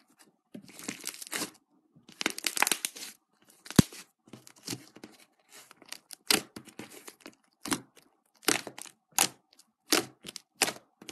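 Fluffy slime being stretched, squeezed and poked by hand, crackling and tearing in longer bursts over the first few seconds, then giving a string of short, sharp pops as fingers press into it and pull out.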